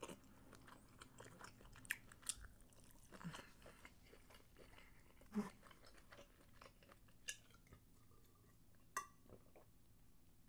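Faint, close-miked chewing of fried, battered seafood, with scattered small crunches and mouth clicks over a near-quiet room.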